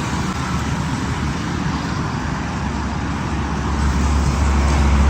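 Steady road traffic noise with a low engine rumble that grows louder about four seconds in.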